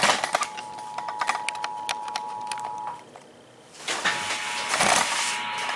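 Emergency Alert System attention signal: a steady two-note tone played over a speaker, with scattered clicks. It cuts out about three seconds in and returns a moment later over a hiss.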